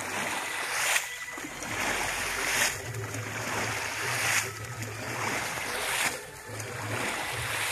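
A large round woven basket is swept through a shallow muddy stream and the water flung out of it. There is a loud splash about every one and a half to two seconds, five in all.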